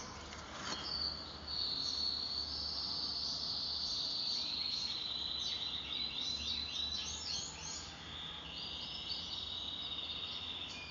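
A high, rapid trill from a small animal, in long unbroken phrases that step down in pitch, over a faint low steady hum.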